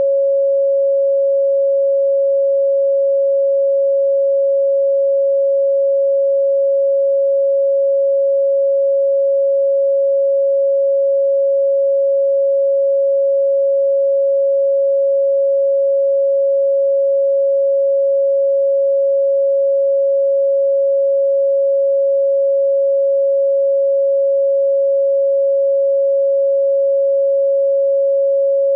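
Steady, unbroken pure electronic sine tone at 551.994 Hz, with a much fainter, high-pitched steady whistle above it.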